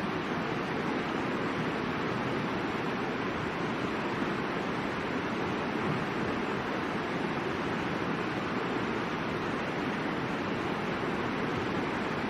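The Middle Fork of the Boise River rushing steadily over rocks, an even, unbroken roar of moving water.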